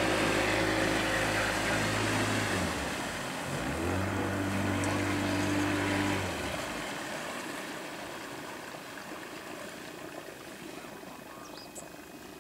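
Small motorboat's outboard engine running at a steady pitch, dipping briefly about three seconds in, then cutting out about six and a half seconds in, leaving a fading hiss of water and wind.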